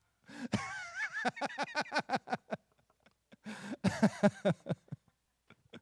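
Laughter in two bouts of quick, rhythmic 'ha-ha' pulses, the second starting about halfway through.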